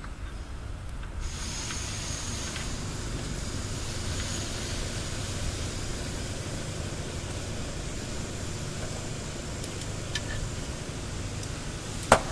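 A socket wrench on a long extension bar tightening the gearbox-to-engine bolts of an automatic transmission: a few faint metal clicks over a steady hiss, then a sharp metallic clank near the end.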